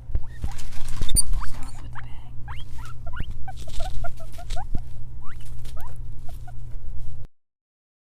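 Guinea pig squealing in a quick run of short, rising squeaks over a steady low hum. The sound drops out to silence for about a second near the end.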